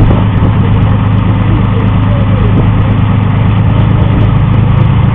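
Tracked armoured vehicle's engine running steadily as the vehicle climbs a grassy slope: a loud, even drone that holds the same pitch throughout.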